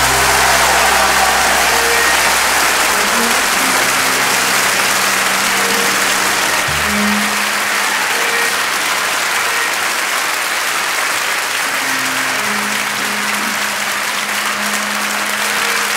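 Music of slow held low chords that change every few seconds, under a loud, steady hiss like applause.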